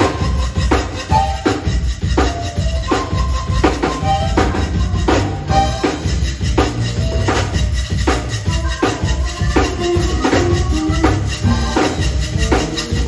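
Live zydeco band playing an instrumental passage with a steady beat: a Gabbanelli piano accordion leads over drum kit, electric bass, guitar and keyboard, while a rubboard (frottoir) is scraped in rhythm.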